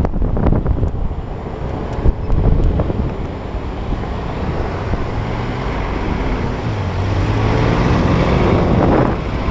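Wind rushing over the microphone on a moving scooter, over the scooter's engine and the surrounding car traffic. The engine climbs in pitch in the last few seconds as the scooter speeds up.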